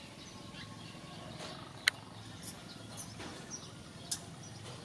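Steady background noise with a few short, high chirps and sharp clicks; the loudest click comes about two seconds in, another just after four seconds.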